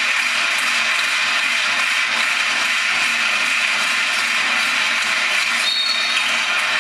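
Steady crowd din in a basketball hall, heard as a dense hiss on an old videotape recording. About six seconds in, a short, high referee's whistle sounds, calling a foul on a shot.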